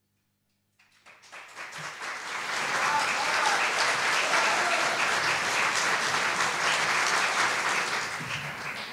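Audience applauding: the clapping begins about a second in after silence, swells to a steady level, and tapers off near the end.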